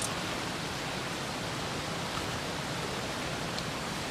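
Steady, even rushing background noise, like running water, with a light click right at the start and a couple of faint ticks.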